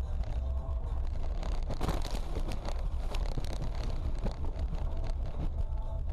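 Dash-cam recording from inside a car as it runs off the road into a grassy ditch and field: a heavy low rumble with wind buffeting the microphone, and a burst of jolts and rattles about one and a half to three seconds in as the car goes over the rough ground.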